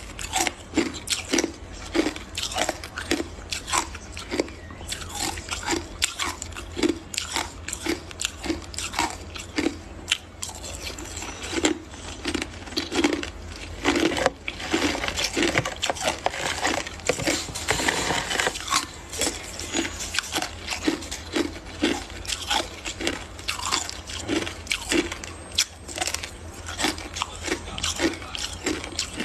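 Hard crushed ice being bitten and chewed close to the microphone: a fast run of sharp crunches, about two a second, thickening into continuous grinding for a few seconds around the middle, over a steady low hum.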